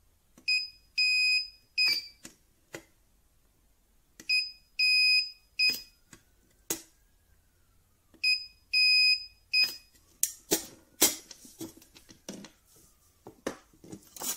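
A cheap battery spot welder's beeper sounding three times, each a short-long-short group of high beeps, with a sharp snap of the weld pulse through the pen probes after the first two groups. From about ten seconds in come a string of louder clicks and knocks as the strip is handled. These are weld attempts on 0.4 mm strip that do not hold: no weld.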